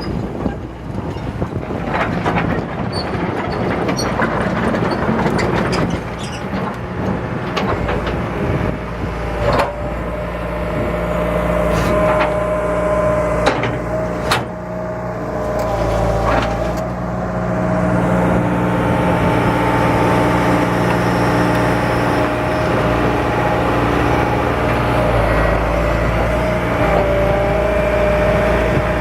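John Deere 160LC excavator running: its diesel engine runs steadily under a steady whine, with a few sharp knocks in the first half.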